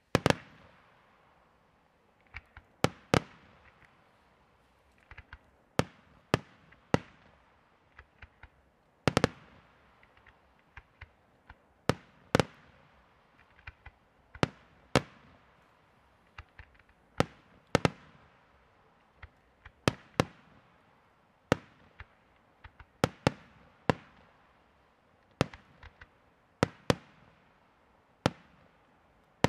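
Bruscella aerial firework display shells bursting in a steady run of sharp bangs, roughly one or two a second and some in quick pairs, each followed by a rolling echo.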